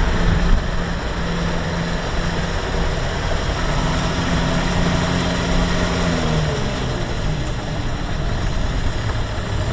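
Diesel engine of a Kubota rice combine harvester running steadily. Its note drops slightly about two-thirds of the way through.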